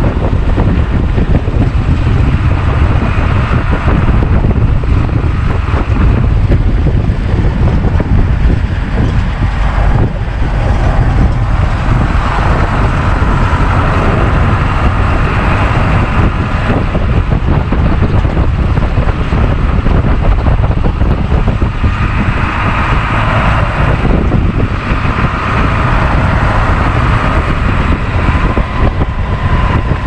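Micro-bus motorhome driving along a dirt road: a steady, loud engine and road rumble with no let-up.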